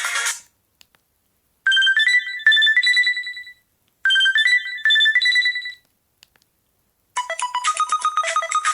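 LG KC550 mobile phone playing its ringtones. One tune cuts off just after the start. Then a short melody of rising notes plays twice with a pause between, and about seven seconds in a new, busier ringtone starts.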